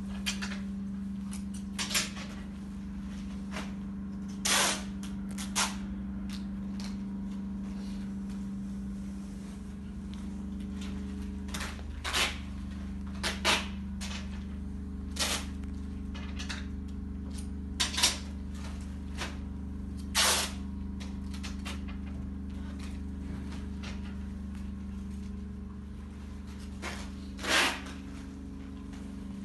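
Workshop background: a steady low machine hum with irregular sharp clacks and short knocks every second or two, and a few longer brushing noises.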